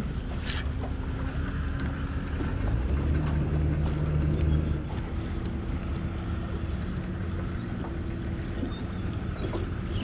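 Boat motor running steadily with wind on the microphone; its pitch shifts and it gets louder for a couple of seconds about three seconds in.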